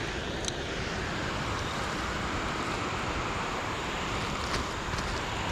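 Steady rushing noise, with a couple of faint clicks.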